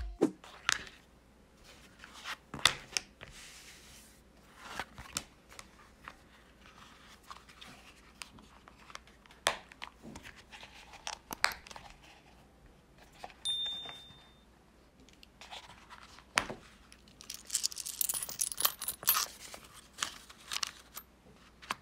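Leather wallet being folded and handled: the leather rustles and rubs, broken by a few sharp clicks. Near the end comes a stretch of crinkling as paper banknotes are slid into the wallet.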